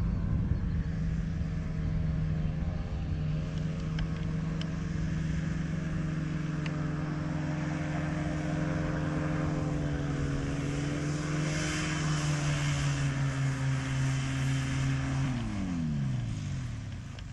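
Powered parachute's pusher engine and propeller running steadily as the trike rolls on the grass. About fifteen seconds in, the pitch drops steeply and the engine winds down as it is throttled back or cut.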